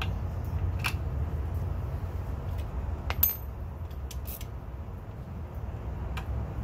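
Small metallic clicks of a hand tool and metal parts being handled on an outboard's lower unit, with one sharp metallic clink that rings briefly about three seconds in, over a steady low rumble.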